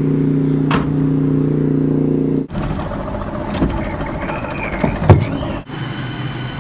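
A steady engine hum that cuts off abruptly about two and a half seconds in, followed by vehicle noise with a single thump about five seconds in.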